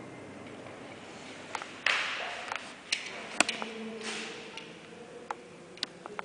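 A few scattered sharp clicks and taps, the loudest about three and a half seconds in, with a short hiss about two seconds in.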